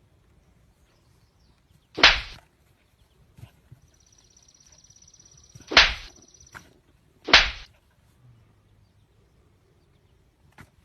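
Three loud, sharp cracks, the second and third close together, with a high buzzing tone lasting about three seconds between the first and second.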